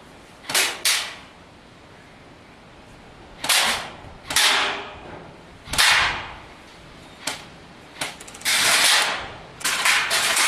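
Airsoft guns firing in a skirmish: scattered single sharp cracks at uneven spacing, with one longer burst near the end.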